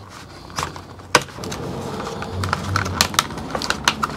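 Stiff plastic blister packaging of an impact socket set being cut open and handled, the plastic sleeve of metal sockets pulled from its card, giving a run of sharp, irregular clicks and clacks.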